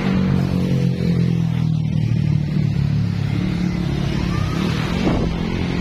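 Motor vehicle engine running steadily at an even speed while driving.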